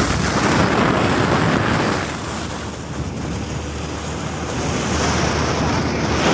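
Wind rushing over the microphone of a moving motorcycle, mixed with road noise, a little quieter for a couple of seconds in the middle.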